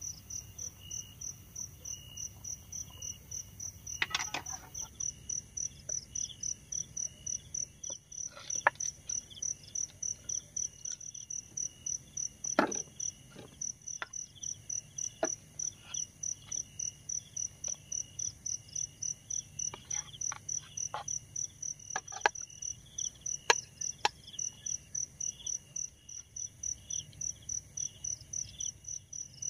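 Night insects chirping: one gives a high, even pulsed chirp of about three pulses a second, and another chirps more irregularly at a lower pitch. A few short knocks and rustles come through now and then.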